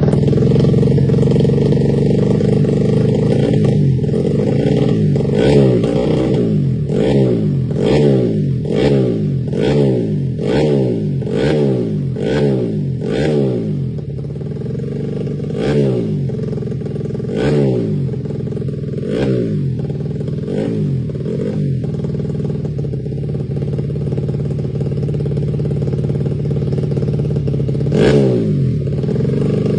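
Freshly rebuilt, modified carbureted Honda Beat scooter engine idling and revved with quick throttle blips. About a dozen fast blips come in a row early in the run, then a few spaced-out ones, and a last one near the end.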